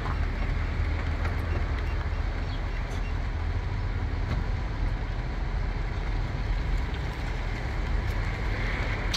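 Steady rumble of a vehicle on the move, with low road and engine noise and no breaks.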